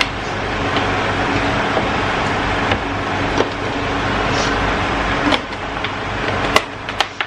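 Generator running steadily, an even hum and rush. A few sharp clicks and knocks near the end, from a jar being handled.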